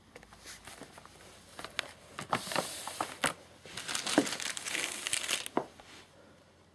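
Plastic wrapping on fireworks packs crinkling and crackling as it is handled, in two bouts of rustling and sharp crackles, the second bout the louder.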